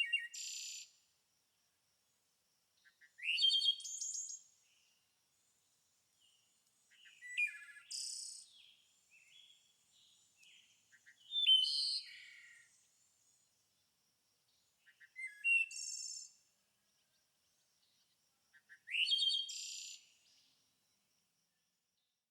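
A songbird singing short, varied phrases of quick chirps and rising whistles, six in all, one about every three to four seconds.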